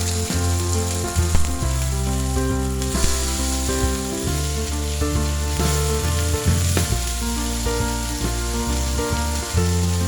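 Kofte meatballs frying in oil with a steady sizzle, under background music with held bass notes and chords.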